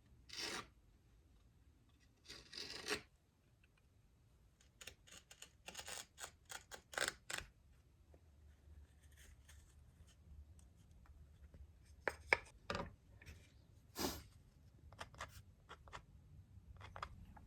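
Faint hand-tool strokes on elm: short scraping and rasping strokes come singly and in short runs, with pauses between, as rebates are cut into the box sides.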